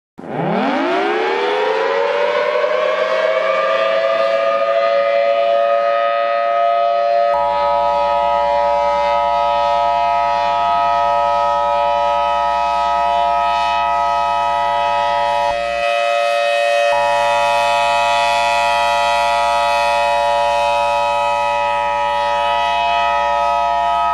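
Civil defense siren spinning up from silence to a steady wail. About seven seconds in, a steady two-tone alert tone joins it, drops out for about a second near sixteen seconds, then resumes.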